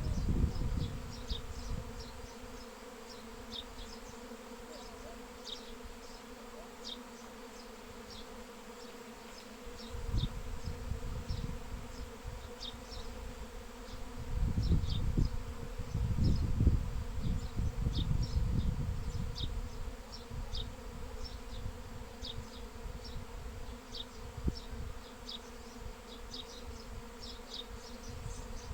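A swarm of honeybees buzzing, a steady hum, while small birds give short high chirps again and again. A low rumbling swells in twice, loudest a little past the middle.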